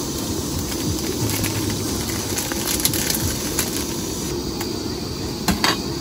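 Portable butane gas stove burner hissing steadily under a pot of water being heated. Two sharp clicks about five and a half seconds in.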